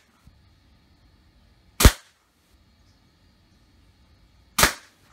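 Daisy Winchester M14 CO2 pellet rifle firing twice, about three seconds apart: each shot a sharp crack of CO2 discharge with a short decaying tail.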